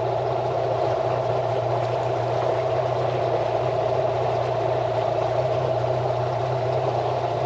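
Outboard motor of a small boat running steadily at an even speed.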